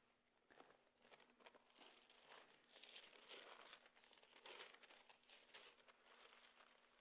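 Faint, irregular rustling and crinkling of thin Bible pages being turned to find a passage.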